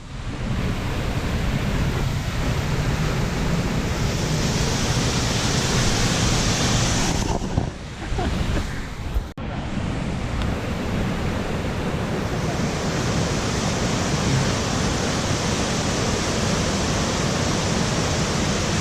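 Steady rushing of waterfall water close by, an even dense noise that dips briefly twice, about 8 and 9 seconds in.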